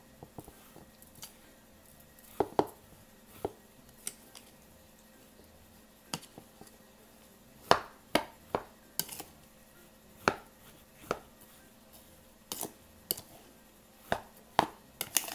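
A utensil knocking and scraping against a ceramic bowl while sushi rice is mixed with its sugar seasoning, giving irregular sharp clinks and taps with short quiet gaps between them.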